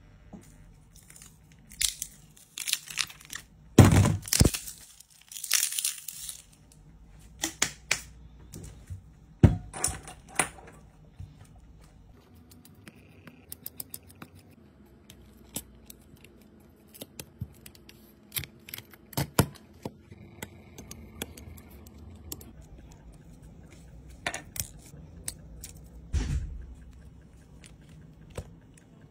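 Hands and small repair tools working on a cracked iPhone: scattered sharp clicks and taps of a screwdriver, tools and long nails against the phone's glass and frame, with several short scraping, tearing sounds, the loudest about four to six seconds in.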